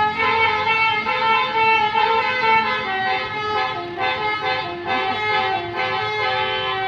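Telolet bus horns, the multi-tone musical air horns of Indonesian buses, playing a tune. Several tones sound together and jump from note to note every fraction of a second.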